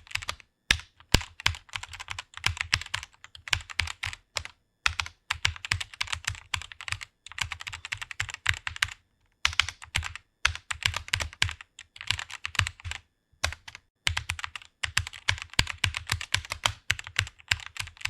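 Typing quickly on a computer keyboard: rapid runs of key clicks broken by short pauses.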